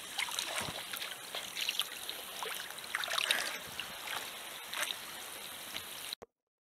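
Sea water lapping and trickling right at the camera at the surface, with small splashes and droplets. The sound cuts off abruptly near the end.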